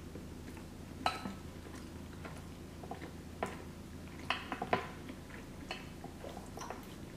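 Metal fork clinking and scraping in a glass baking dish of creamy pasta: a few sharp clicks, with a quick cluster about four and a half seconds in, while she eats quietly with her mouth full.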